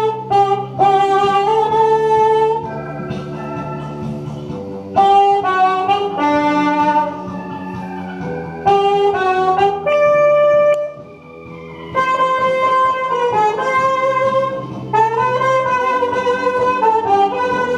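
Bassoon playing a slow, held-note melody over a lower chordal accompaniment, with a short break in the melody about eleven seconds in.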